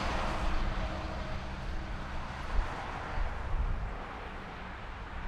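A tractor-trailer passing by on the highway: a loud rush of tyre and engine noise that fades away over about three seconds, leaving a low traffic rumble.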